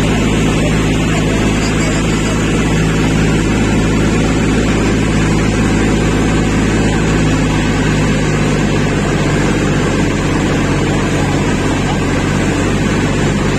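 Motorboat engine running steadily while the boat is under way, with the rush of churned water from its wake.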